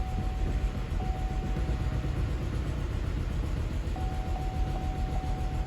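2012 GMC Acadia's 3.6-litre V6 running steadily at idle, just restarted after a crank-no-start fault traced to a blown ECM1 fuse. A faint, thin steady tone sounds alongside it, breaking off for a while in the middle.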